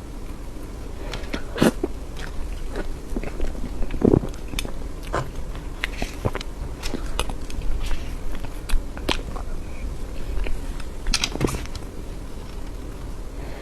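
A person eating soft cream cake close to the microphone: chewing with short, sharp mouth clicks at irregular intervals.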